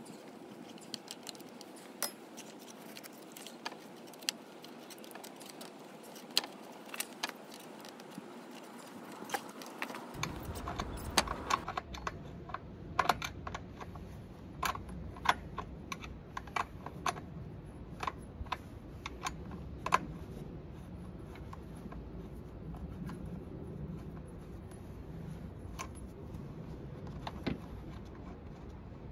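Scattered sharp clicks and clinks of a metal hand tool and small metal parts against the engine housing of a STIHL FS250 brush cutter as its cover is unscrewed and taken off; the clicks come thicker and louder from about ten seconds in.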